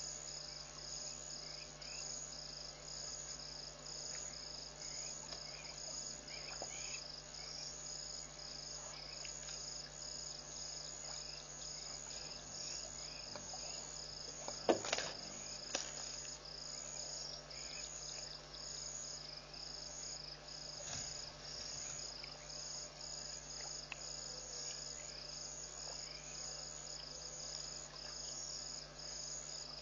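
Crickets chirping in a steady, pulsing night chorus. A single sharp knock about halfway through.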